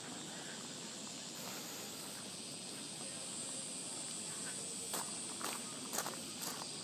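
Cicadas droning steadily in a high, even buzz. A few short clicks and knocks come in the last two seconds.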